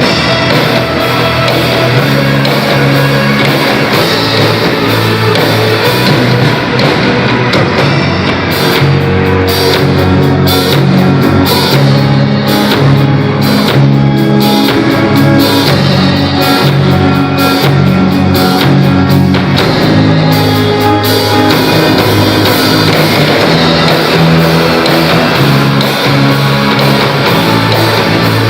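Rock band playing loud rock with electric guitar and drum kit. Through the middle the high end cuts in and out in a choppy, stop-start rhythm before the full band carries on.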